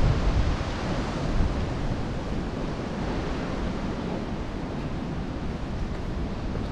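Wind on an exposed microphone: a steady rushing hiss with low rumbling gusts of buffeting, strongest at the start and again near the end.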